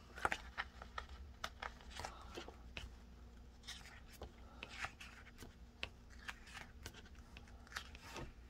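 Sticker-book pages being flipped: faint, irregular papery flicks and rustles as the sheets are turned one after another.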